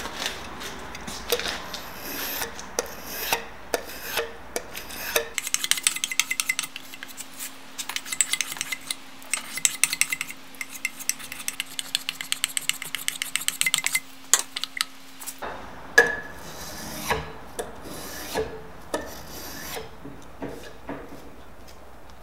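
Spokeshave shaving a hickory axe handle in repeated scraping strokes. From about 5 s to 15 s the strokes come short and rapid, over a faint steady hum.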